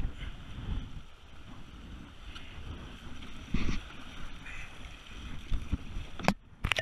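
Kayak paddling on moving river water: the paddle splashing in and water slapping against the hull, with wind buffeting the microphone. Near the end the sound drops out with two sharp clicks.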